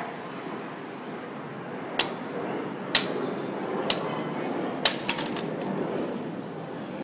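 A hatchet wedged in a wooden stick, knocked down onto concrete to split the wood: four sharp knocks about a second apart, then a few lighter clatters as the split halves drop.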